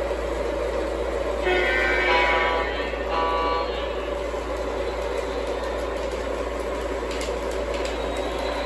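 An O gauge model diesel locomotive's electronic horn sounds two blasts, a longer one about a second and a half in and a short one about three seconds in. Under it runs the steady noise of model trains rolling on three-rail Fastrack track.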